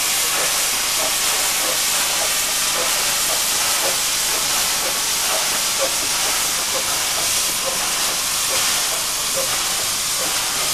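Steady hiss of escaping steam from LB&SCR Terrier 0-6-0T tank locomotives.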